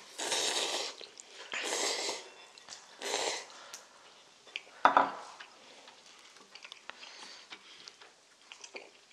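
Three noisy slurps of ramen noodles in the first few seconds. About five seconds in comes a sharp clink of utensils against dishes, followed by light taps of chopsticks and bowls.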